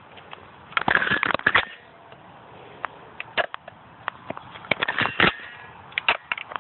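Irregular sharp plastic clicks and rattles in short clusters: a Nerf dart blaster being loaded by hand.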